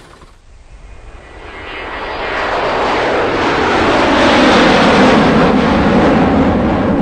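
Loud rushing noise of a passenger van driving along a road, heard from inside the cabin: engine and road and wind noise building up over the first few seconds, then steady.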